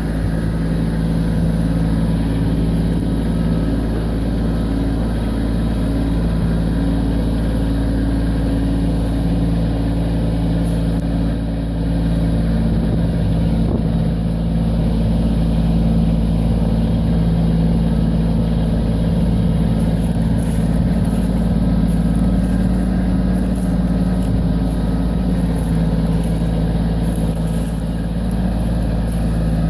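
Kubota B2601 compact tractor's three-cylinder diesel engine running steadily.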